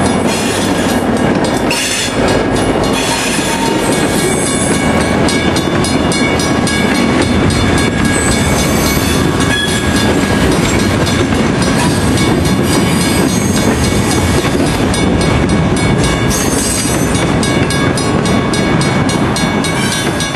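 Short freight train passing close by at a level crossing. An R.J. Corman diesel-electric locomotive goes by first, then boxcars and a flatcar roll past with steady wheel-and-rail noise, loud throughout.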